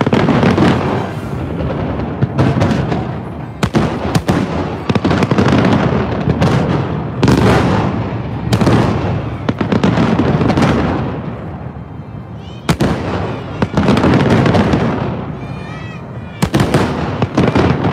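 Fireworks display: aerial shells bursting one after another, sharp bangs, some in quick runs of several, each trailing off in a long rolling echo.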